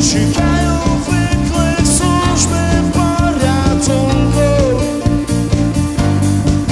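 Live rock band playing a song, with guitars prominent and a melodic lead line that rises and falls in pitch.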